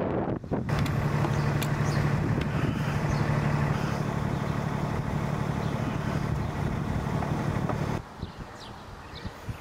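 A vehicle engine idling with a steady low hum. It stops abruptly about eight seconds in, leaving quieter outdoor background.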